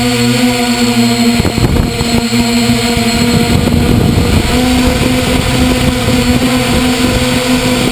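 Drone's electric motors and propellers humming steadily, heard from a camera mounted on the drone, with wind rushing over the microphone. About a second and a half in, the steady hum breaks up into rough wind buffeting, then settles back to a steady pitch about halfway through.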